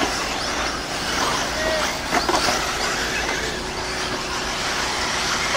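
1/8-scale electric RC buggies racing on a dirt track: a steady blend of electric motor whine and tyre noise.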